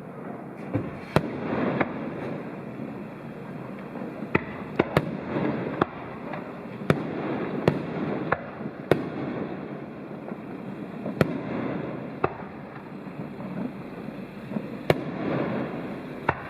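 Fireworks display: about a dozen sharp bangs of exploding shells at irregular intervals, some in quick pairs. A continuous noisy hiss and rumble runs between them.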